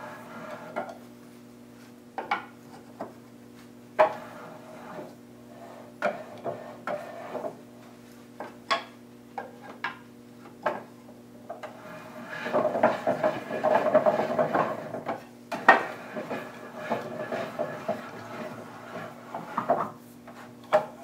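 Wooden leg vise being set up: the metal-shanked stop pin clicking and knocking against and into the holes of the wooden parallel guide, with a stretch of rattling and rubbing about twelve seconds in as the guide shifts. A steady low hum runs underneath.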